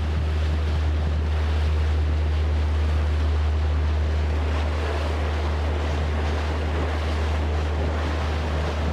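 Boat engine running with a steady low drone, under the rush of sea water and wind buffeting the microphone.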